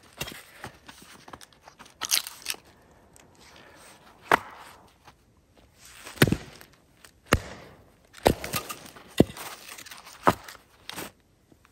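A hatchet chopping and splitting small logs of firewood: a series of sharp strikes of the blade into the wood, irregularly spaced at roughly one a second.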